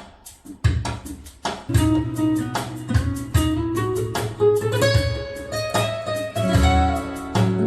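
Recorded music played back through the DR100W Class D power amplifier (NXP TDA8950TH chip) and its speakers: guitar notes over repeated drum hits, the notes climbing in pitch as the phrase goes on.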